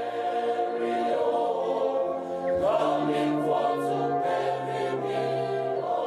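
Choir of schoolboys singing an English anthem in harmony, holding long chords of several voices that shift to new notes every second or two.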